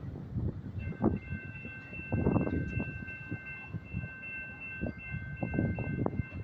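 Freight train rolling by, with many short knocks over a low rumble. From about a second in, a steady high chord of three tones sounds over it and holds until the end.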